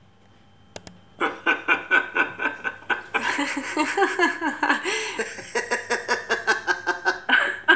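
A recording of a person laughing: a run of quick rhythmic bursts at about four a second, starting about a second in and packing closer together with rising and falling pitch in the middle.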